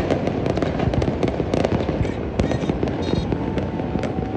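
Many fireworks and firecrackers going off at once, a dense, unbroken crackle of pops and bangs.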